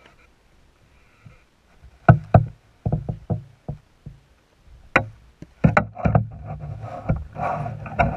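A string of sharp, irregular knocks and clicks, heard muffled through a GoPro's waterproof housing underwater beneath lake ice. Near the end they run together into a continuous rattling noise.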